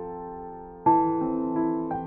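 Background piano music: a held chord dies away, then a new chord is struck a little under a second in, with single notes added after it.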